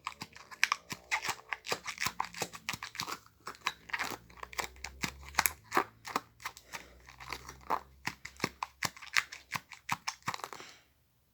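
Rapid, irregular crinkling and crackling clicks from a plastic fidget toy being handled, cutting off suddenly near the end.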